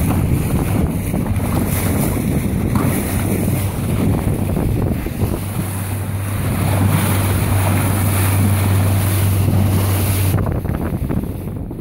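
Rigid inflatable boat under way: a steady outboard engine hum beneath wind buffeting the microphone and the rush of spray off the hull. The engine hum stops about ten seconds in, leaving wind and water.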